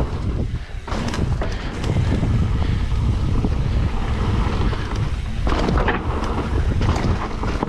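Wind buffeting a GoPro's microphone as a Trek 29er full-suspension mountain bike descends a dirt trail. Under the wind there is a steady low rumble from the tyres and frequent knocks and rattles as the bike hits bumps.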